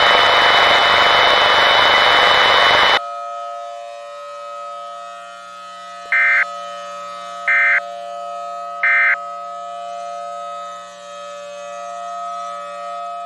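Loud static hiss that cuts off suddenly after about three seconds, then a civil defense siren holding a steady multi-tone wail that slowly swells and fades. Three short, higher beeps sound over the siren, about a second and a half apart.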